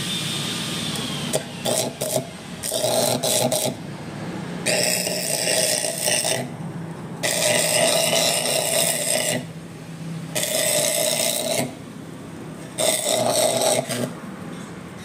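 Power tool working on metal in repeated bursts, five of them of one to two seconds each, with a steady low hum in between.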